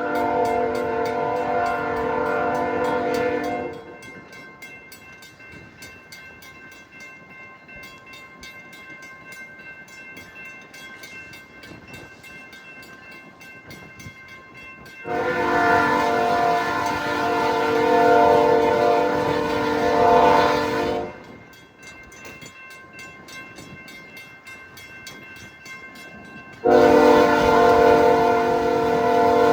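Diesel locomotive horn blowing a chord of several tones in long blasts: one of about four seconds at the start, a longer one of about six seconds in the middle, and another beginning near the end. Between the blasts the slow-moving train rumbles quietly.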